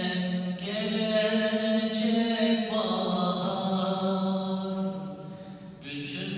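A man's unaccompanied voice chanting a kaside, a Turkish religious ode, in long, held, ornamented notes. The voice fades briefly about five seconds in, and a new phrase begins near the end.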